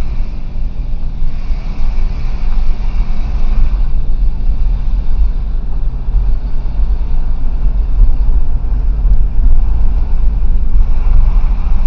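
Car driving, heard from inside the cabin: engine and road noise as a steady low rumble.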